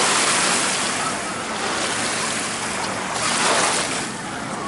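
Small Lake Michigan waves lapping and breaking on a sandy shoreline, a steady wash of surf that swells a couple of times, with wind on the microphone.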